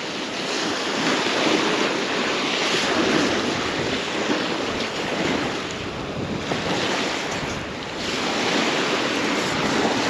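Surf washing onto the beach, with wind buffeting the microphone; the noise swells and eases, dipping briefly about eight seconds in.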